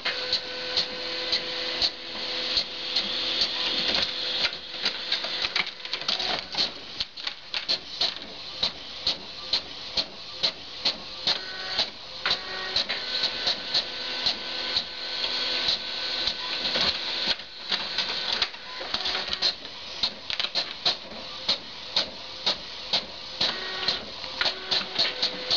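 Printer running a job: a steady motor whir with repeated sharp mechanical clicks and clacks, often one to three a second, and whining tones that come and go.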